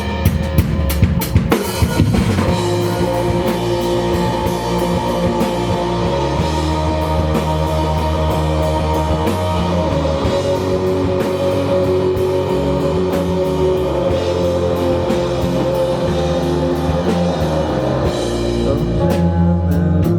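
Indie rock band playing live: a quick run of drum hits in the first two seconds, then the full band with drum kit, bass and guitar playing an instrumental passage without vocals.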